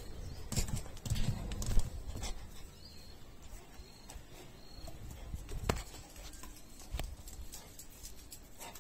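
Footsteps on hard stone steps and tiled floor, with irregular knocks and low bumps, busiest in the first two seconds and thinning to a few single clicks later.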